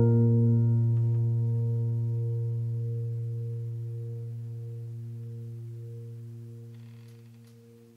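Background music ending on one held low chord that slowly fades away to silence.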